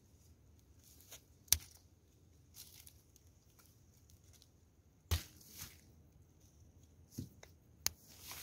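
Food preparation sounds: a few sharp knocks, the loudest about a second and a half in and again about five seconds in, with softer rustling and tearing noises between.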